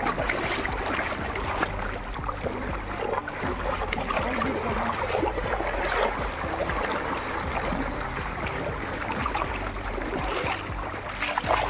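Water running and splashing in a canal: a steady rush with many small crackling splashes throughout.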